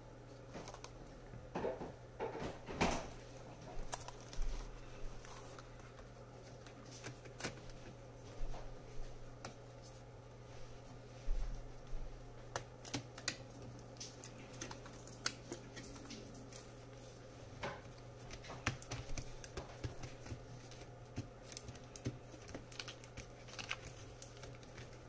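Irregular light clicks and taps of plastic as a replacement HP Envy x360 15m laptop keyboard is handled, pressed and seated into the laptop's top case.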